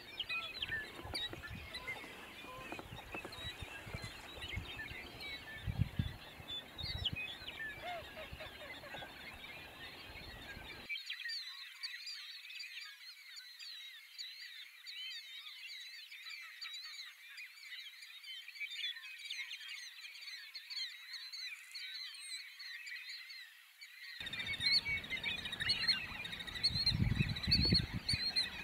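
Spring wetland chorus of waterfowl and other birds: many short overlapping calls at once. A few low rumbles rise under the calls in the first stretch and again near the end.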